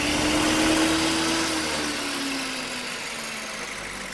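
A small electric motor of the novelty 'electric saw' runs with a steady whine and a hiss. Over the last two seconds it drops in pitch and fades as it winds down.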